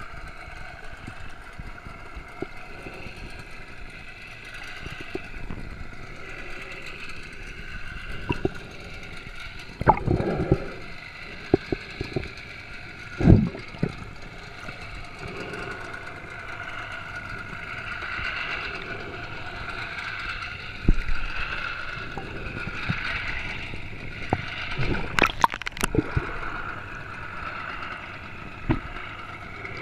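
Underwater sound: water gurgling over a steady, slowly wavering boat-engine whine, with scattered knocks, the loudest about 13 seconds in and a cluster near 25 seconds.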